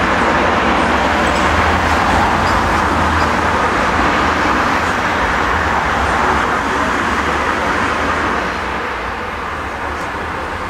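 Steady street traffic noise, a continuous rush of passing vehicles, louder for the first eight seconds or so and then easing off.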